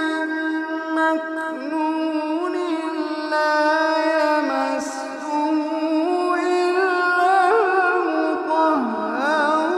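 Quranic recitation in a slow, melodic tajweed style: a single voice holding long, ornamented notes that glide up and down, with barely a pause for breath.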